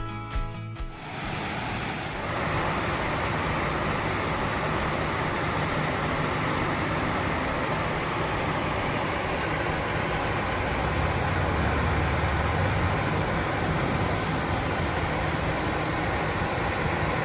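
Steady rush of falling water, a continuous even roar, after background music cuts off about a second in.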